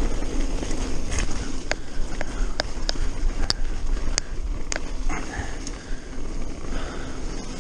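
Mountain bike riding down a gravel forest trail: a steady rumble of wind and tyres on the track, with a run of sharp irregular clicks and rattles from the bike over the rough ground between about two and five seconds in.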